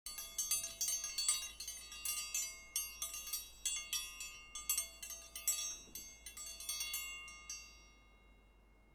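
Metal chimes ringing: a quick, irregular run of bright struck tones that overlap and ring on. They thin out and die away about seven and a half seconds in.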